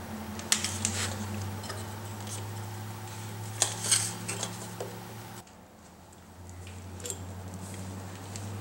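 Aluminium suitcase-handle tubes clinking and scraping against wooden blocks and the steel press bed as they are set into a pressing jig. The sharpest clicks come about half a second in and around four seconds in, over a steady low hum that drops out briefly near the middle.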